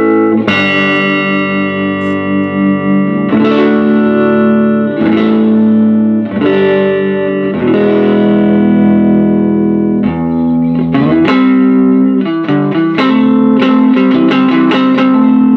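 Electric guitar played through a 1956 Gibson GA-6 tube amp set about a quarter of the way up on its instrument channel: strummed chords left to ring, changing every second or two, then quicker picked notes from about eleven seconds in.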